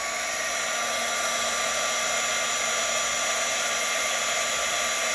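Embossing heat tool running, blowing hot air steadily with a faint whine to melt embossing powder on a card.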